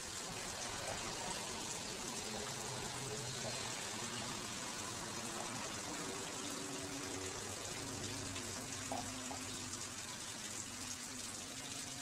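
Small garden fish-pond waterfall: water pouring steadily over a stone ledge and splashing into the pool below.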